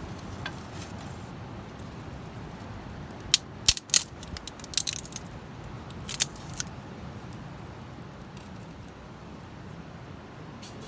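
A quick run of sharp clicks and knocks a few seconds in, over a steady low hiss.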